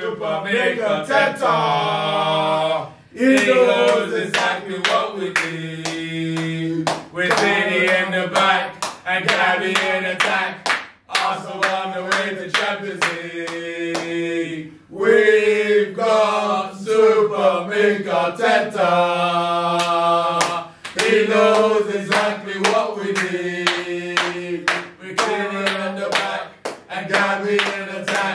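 A group of men singing a football chant together with long held notes, clapping along in a steady beat. The singing breaks off briefly a few times.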